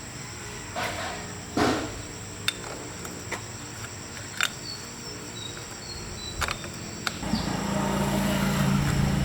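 Scattered clicks and knocks of metal parts and tools being handled, then a steady mechanical hum starts about seven seconds in.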